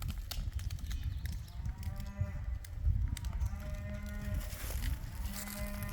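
Cattle mooing, several calls one after another over a steady low rumble.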